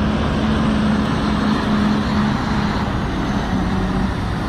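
Steady vehicle engine and road noise with a constant low hum.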